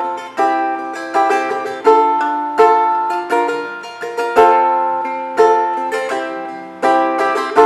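Balalaika in traditional C–E–G tuning, strummed chords in an uneven rhythm, about a dozen strokes, each ringing and fading before the next, played as the song's chorus accompaniment.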